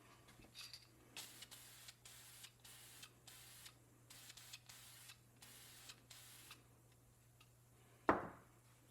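A run of about eight short rubbing or hissing strokes, then one sharp knock about eight seconds in.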